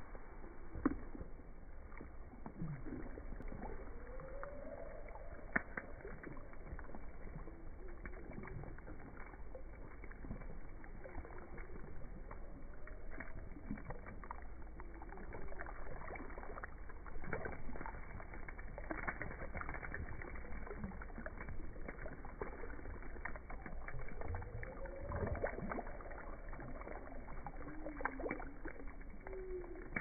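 Water poured from a plastic bottle over a person's head and face, splashing and dripping in many small irregular splatters, with a few slow, low gliding sounds now and then.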